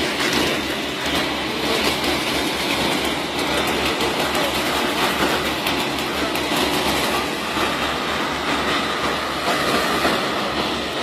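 Continuous mechanical rumbling with a dense, rattling clatter, steady in level throughout.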